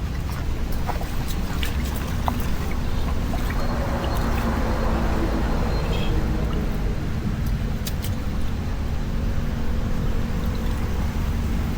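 Rushing floodwater over a steady low rumble, the water noise swelling for a few seconds in the middle, with scattered light clicks.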